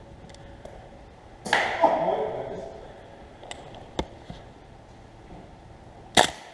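Airsoft guns firing single sharp shots: a louder report about a second and a half in, smaller cracks around three and a half and four seconds, and the loudest, sharpest shot just after six seconds.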